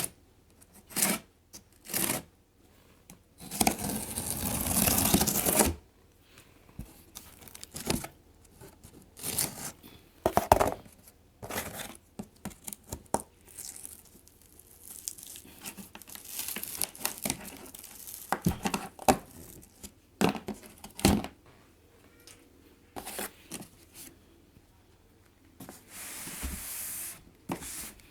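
Packaging being opened by hand: a long tearing rip about three and a half seconds in and another near the end, with crinkling, rustling and short knocks of handling between.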